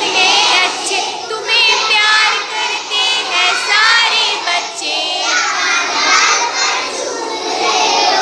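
A group of young children singing a song together in chorus, many voices overlapping.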